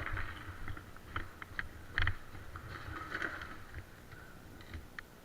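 Footsteps crunching over rubble, with irregular clicks and knocks from a player's gear as he moves; the loudest knock comes about two seconds in.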